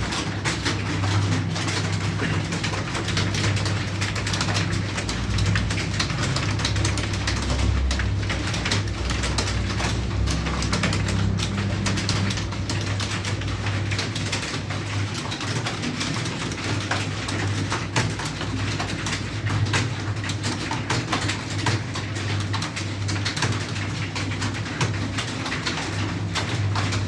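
Computer keyboard typing: a fast, uneven run of key clicks that goes on throughout, over a steady low hum.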